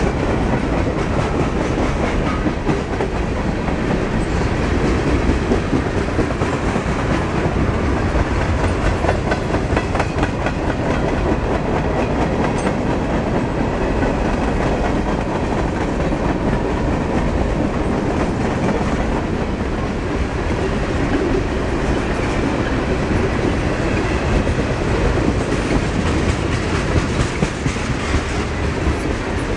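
Freight train of boxcars and tank cars rolling past close by: a steady rumble of steel wheels on rail, with repeated clicks as the wheels cross rail joints.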